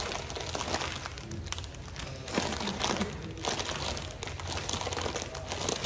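Plastic bag of broccoli florets crinkling as hands pull its top open.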